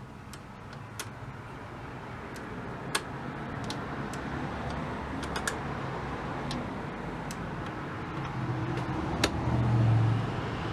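Irregular small clicks of a tube tester's selector knobs and switches being set, over a low hum that grows louder near the end.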